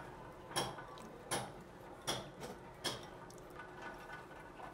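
Raw chicken pieces being dropped by hand, one by one, onto potato chunks in a pressure cooker: a faint wet slap or knock about every three-quarters of a second.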